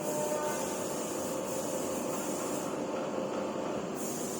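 Steady machinery noise with a faint whine for the first two and a half seconds or so, as the tilting furnace is driven forward.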